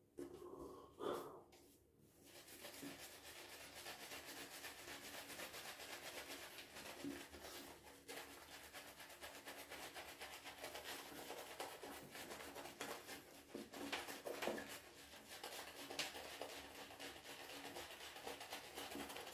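Synthetic-fibre shaving brush being swirled and scrubbed over a stubbled face, a faint, steady, quick scratchy rubbing, as a wet lather is built up on the skin.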